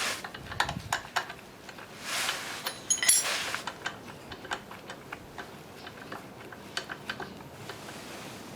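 Small metal objects clinking and clicking irregularly, with a short rustle about two seconds in and a brighter ringing clink around three seconds in.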